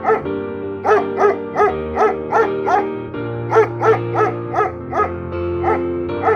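A dog yipping in a fast run of short, high barks, about three a second with a short break midway, over background music.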